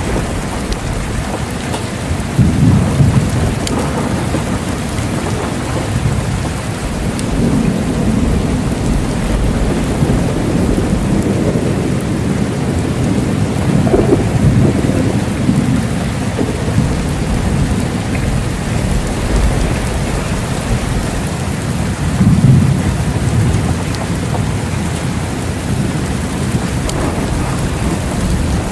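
Steady rain falling, with low rolling thunder rumbling several times, the strongest rolls about two to three seconds in, around the middle, and about two-thirds of the way through.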